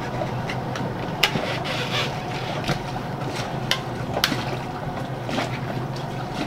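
Steady ambient noise aboard a sailboat: a constant low hum under a wash of wind and water, with a few scattered sharp clicks and taps, two of them louder, about a second in and near the middle.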